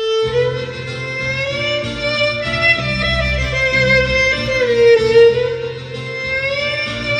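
Instrumental interlude of a Hindi song played through Obage DT21 2.0-channel speakers: a violin melody with long, gliding notes over a steady bass line.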